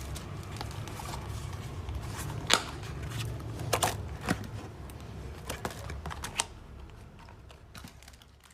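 Scattered light clicks and taps of packaging and small items being handled during an unboxing, over a low steady hum, fading out near the end.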